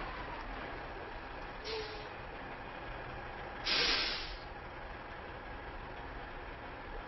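Semi truck's air brakes hissing twice: a short hiss about two seconds in and a louder, longer one about a second and a half later, over steady background noise.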